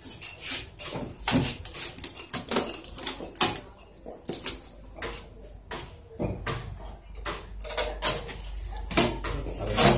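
Irregular clicks, knocks and rustles of hands handling a new Sharp AR-6020 series photocopier's plastic parts and packing pieces, the sharpest knocks about three and a half seconds in and near the end.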